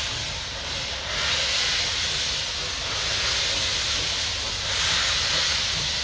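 A steam locomotive releasing steam: a steady, loud hiss that briefly eases about a second in, then carries on.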